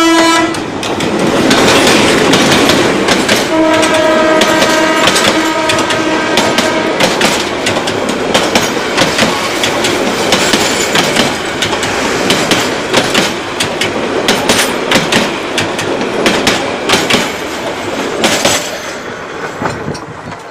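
Bangladesh Railway diesel locomotive passing at close range, sounding its horn: a blast that cuts off just after the start, then one long blast of about three seconds. Its passenger carriages then clatter past, wheels clacking over the rail joints, and the noise fades near the end as the train moves away.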